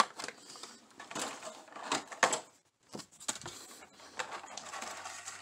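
Clear plastic packaging tray handled by hand: a sharp click at the start, then scattered light crinkles and taps of the plastic.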